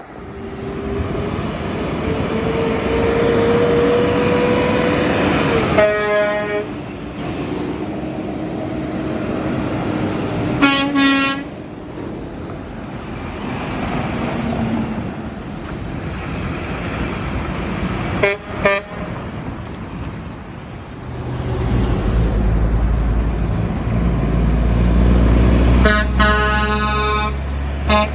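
Trucks passing with a steady road roar, and truck horns sounding several times: short blasts about six and eleven seconds in, a very brief one near eighteen seconds, and a longer broken blast near the end. A low engine rumble is heard under the final blast.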